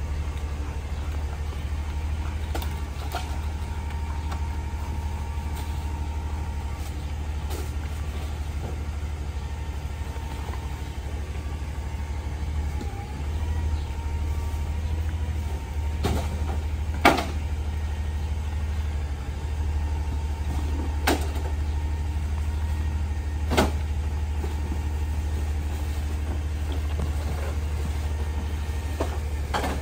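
CNG rear-loader garbage truck's engine idling steadily, with three sharp bangs in the second half as trash is thrown into the hopper, the first the loudest.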